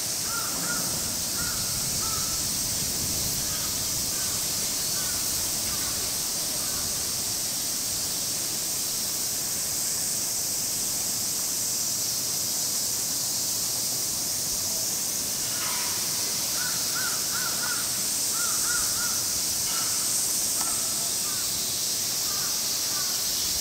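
Crows cawing in short runs of repeated calls, at the start and again for several seconds past the middle, over a steady high-pitched summer cicada chorus.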